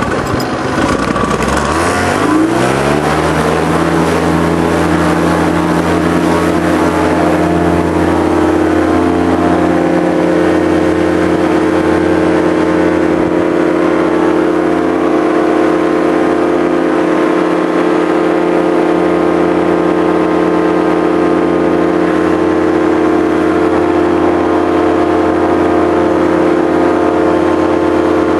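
Radio-controlled model aircraft's motor, heard close from the onboard camera, rising in pitch over the first two seconds or so and then running at a steady high speed as the model flies.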